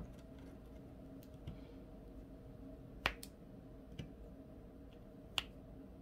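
Scattered small sharp clicks of resin diamond-painting drills and the plastic applicator pen as drills are picked up and set on the canvas, the loudest about three seconds in and another near the end, over a faint low hum.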